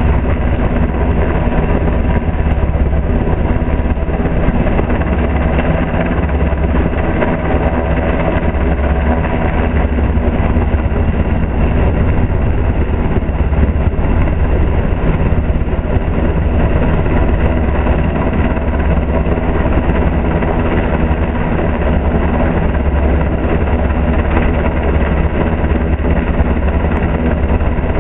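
Coast Guard Jayhawk (H-60) helicopter hovering low overhead with its hoist cable down: loud, steady rotor and turbine noise with a pulsing low rotor beat.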